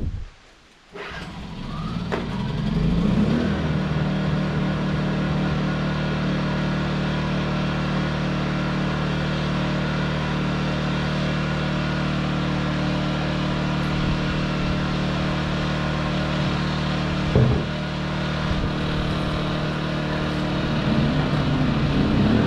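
Champion inverter generators running steadily on fresh oil. The sound comes in about a second in and settles into an even run by about three seconds. The owner feels they run quieter and smoother on the fresh oil. A short knock sounds near the end.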